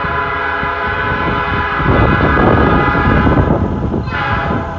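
Freight locomotive air horn sounding a long blast for a grade crossing, which fades out about three and a half seconds in, then one short blast near the end. A heavy rumble from the locomotive passing close rises under the horn from about two seconds in.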